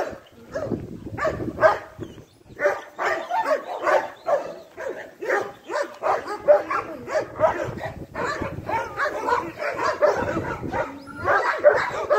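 Dogs barking in quick, repeated barks with hardly a pause, easing briefly about two seconds in.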